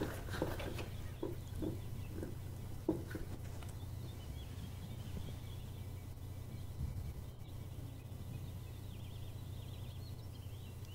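Quiet film-soundtrack ambience: a steady low hum, with a few soft knocks in the first three seconds and faint bird chirps from the middle on.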